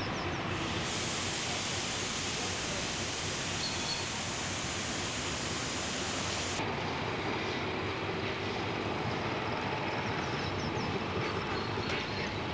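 Diesel locomotive with a train of open goods wagons, a steady rumble of engine and wheels on the track.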